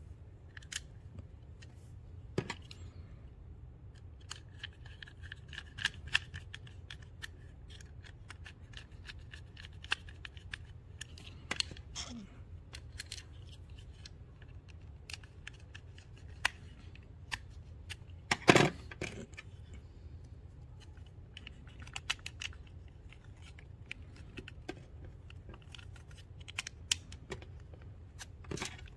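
Small screwdriver turning a screw back into the plastic housing of an electric scooter's key switch, with light scraping ticks and clicks. A few louder knocks come through, the loudest about two-thirds of the way through, over a faint steady low hum.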